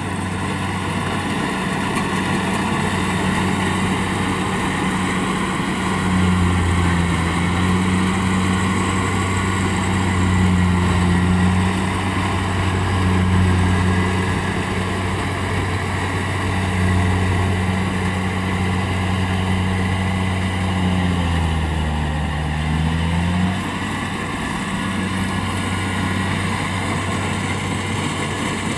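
Engine of a rice harvesting machine running steadily, its note swelling several times as it takes on load, dipping in pitch briefly near the end and then easing back.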